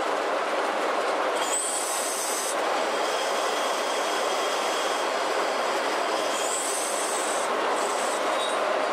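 Steel wire rope and anchor chain being winched along an anchor-handling vessel's steel deck: a steady metallic grinding rumble, with a high squeal breaking in twice, about a second and a half in and again past six seconds.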